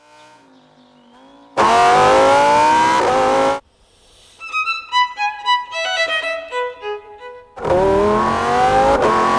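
Lamborghini Huracan EVO Spyder's 5.2-litre V10 revving hard twice. Each rev is a steadily rising engine note with a brief break partway through, and each ends abruptly. Between the two revs comes a run of short violin notes stepping up and down in pitch.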